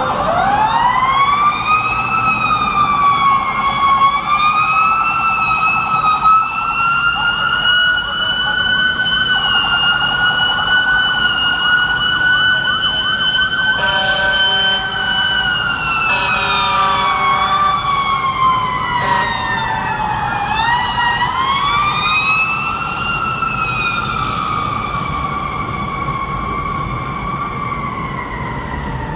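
Fire truck siren wailing slowly. It climbs steeply at the start, holds high with small rises and dips, sinks slowly about two-thirds of the way through, then climbs once more and falls away again near the end, over a low rumble of street traffic.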